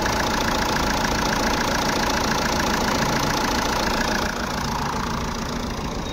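Jeep Compass four-cylinder diesel engine idling steadily with a fast, even tick. It runs smoothly with a new alternator pulley fitted, free of the knocking rattle that the broken pulley had caused. It gets a little quieter about four seconds in.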